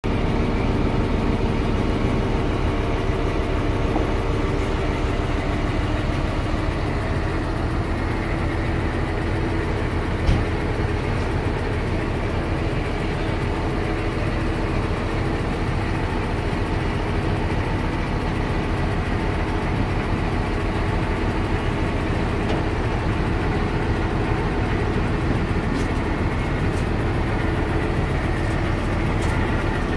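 Heavy vehicle engine running steadily at idle during crane loading of a cable drum, with one sharp knock about ten seconds in.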